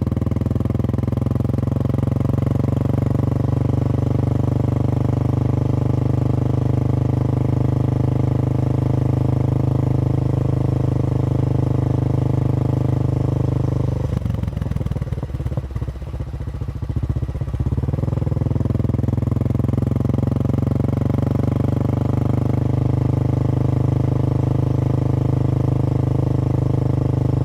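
Royal Enfield motorcycle engine running steadily under way. Its note drops and breaks up for a few seconds about halfway through, then picks back up to the same steady running.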